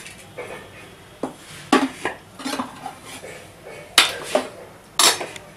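Metal cookware and utensils clattering: a wok, a saucepan and a metal spoon knocking and clinking against each other and the stove in a handful of separate knocks, the loudest two about four and five seconds in.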